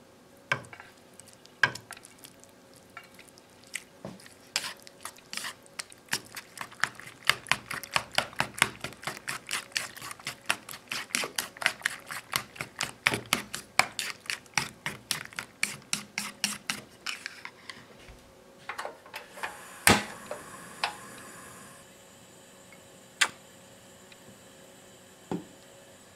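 Chopsticks beating an egg mixture with vegetables in a ceramic bowl: quick, rapid clicking against the bowl, about four a second, after a few knocks at the start. Near the end the clicking stops, then comes one sharp click with a short hiss and two single knocks.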